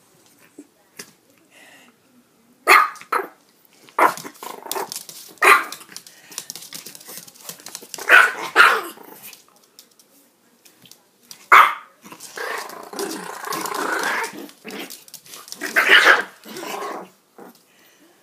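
Chihuahuas play-barking with short, sharp barks scattered through the clip, with a longer stretch of growling about two-thirds of the way in during a game over a sock.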